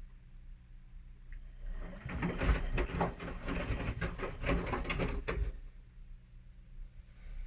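Whirlpool washing machine in its main wash: a low hum runs throughout. About two seconds in, the drum turns for some four seconds, tumbling the wet laundry with a stream of knocks, then stops.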